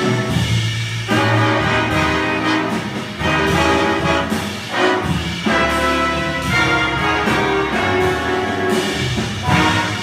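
Jazz big band playing, its trumpet and trombone sections sounding full sustained chords in short phrases, with brief breaks between them.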